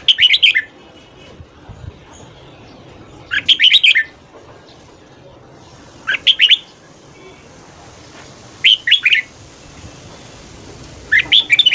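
Red-whiskered bulbul singing five short, quick phrases of a few notes each, one about every two and a half seconds.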